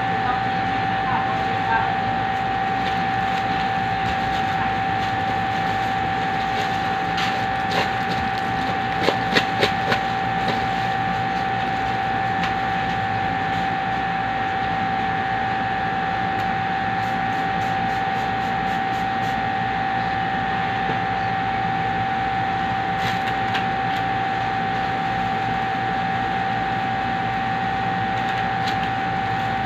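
Steady machine hum with a constant mid-pitched whine and a noisy rush beneath it. A few light knocks come about a third of the way in.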